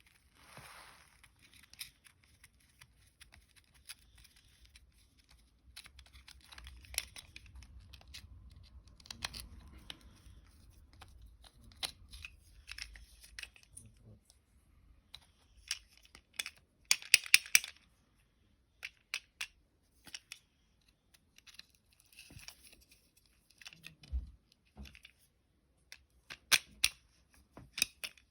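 Hands handling small objects: scattered clicks, taps and rustling, with a quick run of clicks about two-thirds of the way through and a brief low thump near the end.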